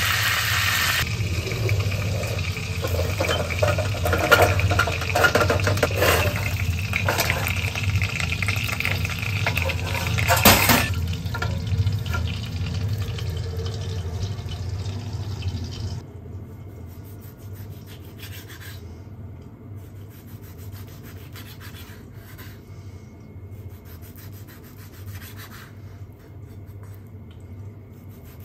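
Dark sauce boiling hard in a small metal saucepan on a gas hob: dense bubbling over a steady low hum, with a sharp pop about ten seconds in. About sixteen seconds in it gives way to a much quieter stretch of faint ticks and scrapes.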